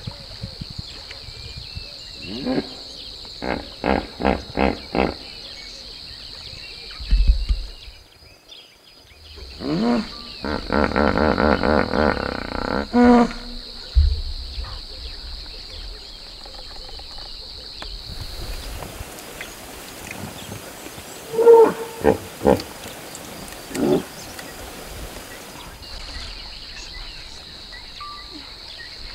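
Hippopotamus calls: a run of quick honking grunts, then a longer drawn-out honk, and a few more short grunts near the end. A steady high-pitched buzz runs underneath.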